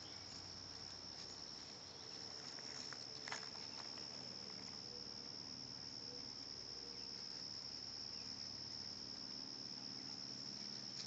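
Faint, steady high-pitched insect chorus, a continuous cricket-like trill that never breaks, with a single faint tick about three seconds in.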